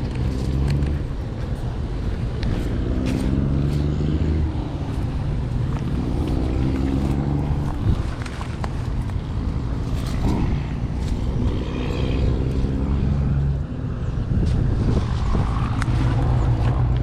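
Car engine and road noise, a steady low drone whose pitch shifts every few seconds as the car drives.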